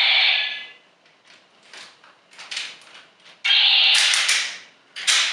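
Kyu The Weapon toy in Kyu Claw mode playing its electronic attack sound effects through its small built-in speaker. One effect lasts about a second at the start, a longer one comes about three and a half seconds in, and a short one comes near the end, with small clicks between them.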